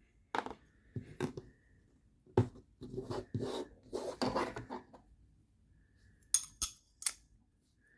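Light metallic clinks and scrapes of a folding knife's small parts and tools being handled during disassembly: scattered clicks and rubbing through the first half, then three sharp clicks near the end.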